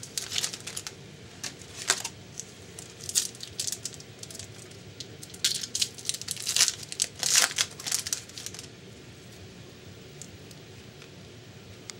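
Crinkling and rustling of a hockey card pack's wrapper and cards being opened and handled, in bursts of sharp strokes for about the first eight seconds, then stopping.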